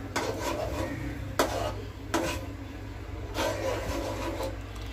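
Spatula scraping across the bottom of a steel pan while stirring vermicelli simmering in milk, about four strokes roughly a second apart. The stirring keeps the milk from catching on the bottom of the pan.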